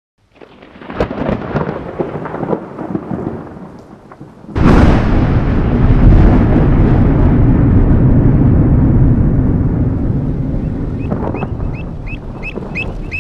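Rain pattering, then a sudden loud thunderclap about four and a half seconds in whose deep rumble slowly fades. Near the end a bird chirps rapidly, about three chirps a second.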